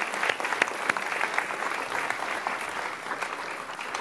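Audience applauding in a large hall, a dense patter of many hands clapping that thins out toward the end.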